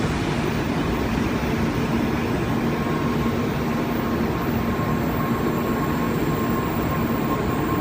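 Shinkansen train running through the station, a steady rumble with a faint steady whine over it.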